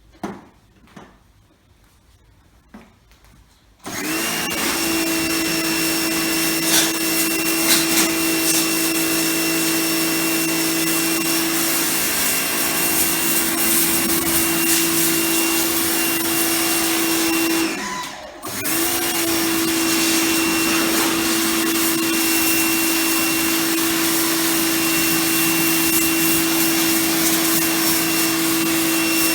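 Titan TTB66PRW electric pressure washer starting up abruptly about four seconds in, after a few small clicks, then running steadily with a high motor hum and the hiss of its water jet. Just past halfway it cuts out for under a second and starts again.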